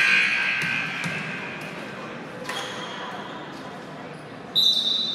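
Voices echoing in a gymnasium with a ball bouncing on the hardwood floor, opening on the fading echo of a loud sound. About four and a half seconds in, a referee's whistle gives one sharp, shrill blast.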